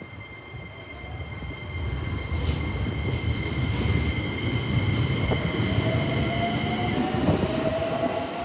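Keikyu 1000-series electric train running at the platform: a low rumble builds over the first couple of seconds, and a thin whine climbs slowly in pitch in the last few seconds.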